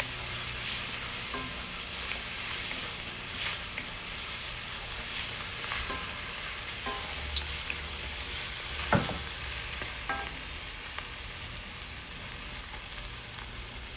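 Chopped ginger, garlic, chilli and red onion sizzling in hot mustard oil in a pan, a steady frying hiss with a few sharp clicks.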